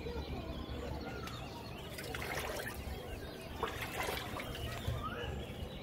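Water trickling and lapping among the rocks of a narrow crevice.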